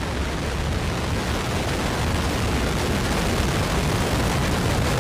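Terran 1 rocket's first-stage engines, nine Aeon 1 methane-oxygen engines, firing at liftoff: a continuous loud rushing noise, strongest in the deep lows, swelling slightly as the rocket climbs off the pad.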